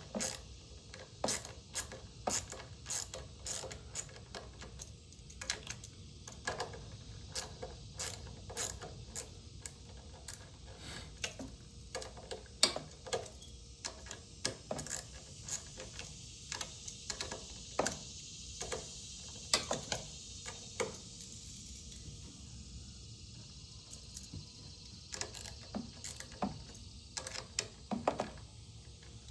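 Ratchet socket wrench clicking in irregular runs with short pauses, as fasteners on the lawnmower's dust cap are worked loose.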